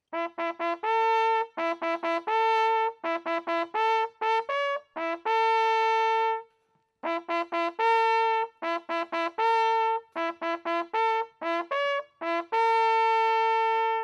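A brass hunting horn blown as a hunting signal: runs of short, quick notes on a few pitches, each run ending in a long held note, with a brief break midway. It is the call that marks the end of the drive.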